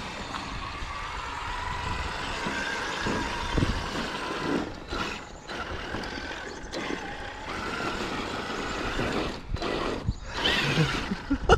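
Traxxas X-Maxx electric RC monster truck driving on 8S power: its brushless motor and drivetrain whine, the pitch rising and falling with the throttle, over tyre and ground noise.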